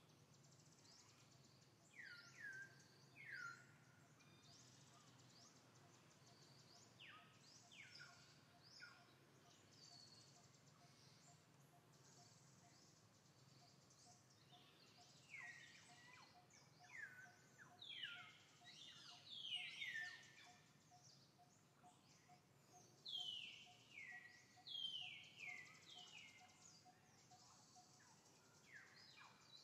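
Faint, high whistled animal calls, each falling quickly in pitch, coming in scattered groups and busiest in the second half, over low background noise. A faint, even pulsing chirp runs underneath through the middle.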